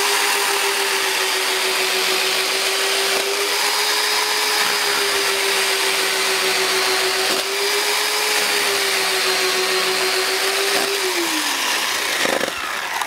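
WORX WG305 14-inch corded electric chainsaw running at full speed and cutting through a birch log, a steady motor whine with chain and wood noise. It cuts smoothly, without chattering or jumping, then winds down with a falling pitch near the end.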